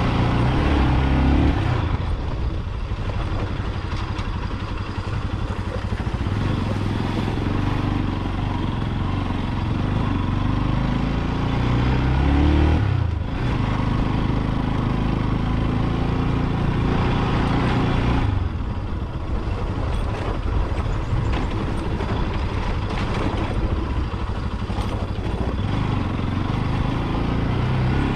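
Motorcycle engine under way, climbing in pitch as it accelerates, then easing off sharply about 13 seconds in and again near 18 seconds, over a steady rush of riding noise.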